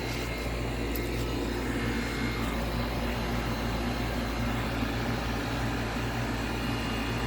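Goodman GSC13 air conditioner's outdoor condensing unit running with a steady hum, the compressor working and the condenser fan blowing out warm air, about a minute into its first run of the season.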